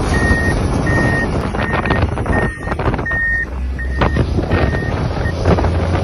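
Back-up alarm of a heavy snow-clearing machine beeping steadily, about one beep every 0.7 seconds, over engine rumble and wind on the microphone. The beeps stop shortly before the end.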